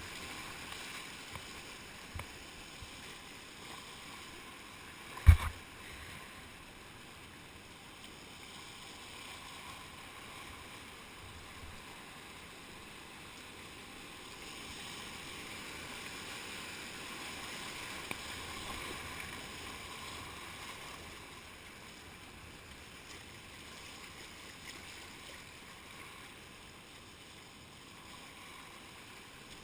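Whitewater rushing around a kayak running a rapid, swelling a little near the middle. One sharp knock about five seconds in is the loudest sound.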